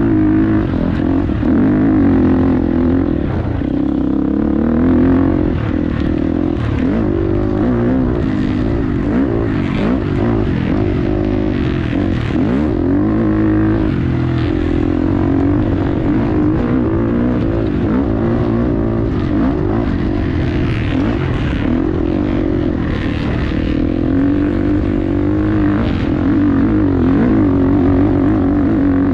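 Vehicle engine running under way, its pitch wavering up and down, with scattered knocks and rattles.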